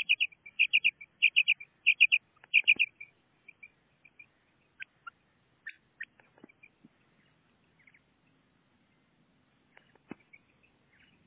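Female common quail calling: about five quick groups of three or four high notes, repeated roughly every half second over the first three seconds, then only scattered faint chirps and a few soft clicks.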